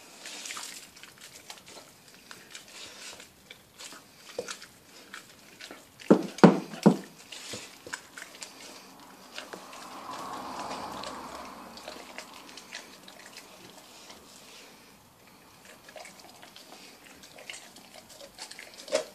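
Rhodesian ridgeback chewing and gnawing a leg of lamb, a run of small crunches and clicks with a few loud cracks about six seconds in.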